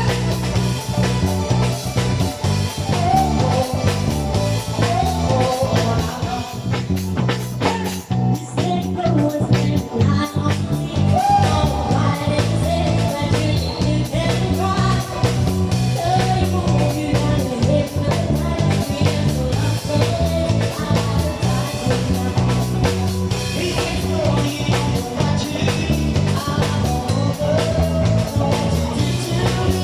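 A band playing without lyrics being heard: guitars over a steady bass line and drum kit.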